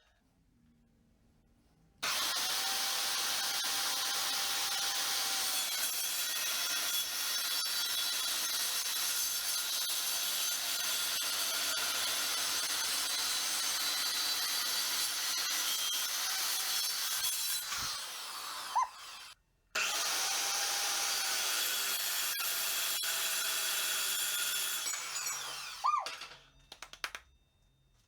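Evolution S185 7-1/4-inch metal-cutting circular saw with a carbide-tipped blade cutting through metal: a steady, loud, high-pitched cutting sound that starts about two seconds in. It stops briefly about two-thirds of the way through, starts again, and winds down near the end.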